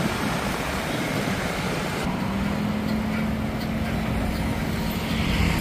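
Busy city street traffic: motorbike and car engines running close by, with one steady engine tone holding for about three seconds in the middle.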